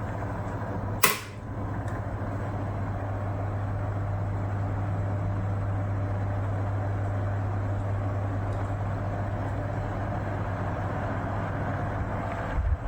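1973 National F-30AAD table fan running with its bearings and gearbox freshly oiled: a steady low motor hum under the even rush of air from the blades. A sharp click about a second in, after which the hum holds steady until shortly before the end.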